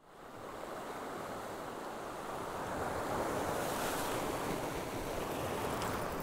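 Sea waves washing against a rocky shore in a steady hiss of surf, mixed with wind noise; it fades in at the start and swells a little midway.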